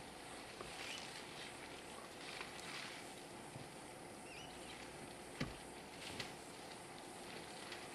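Faint bush ambience: elephants feeding in fan palms, with soft rustles and two sharp snaps a little past halfway as fronds and stems are broken. A single short bird chirp comes about halfway through.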